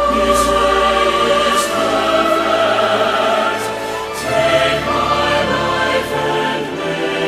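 Choir singing a slow hymn with instrumental accompaniment, the chords held and changing every second or two.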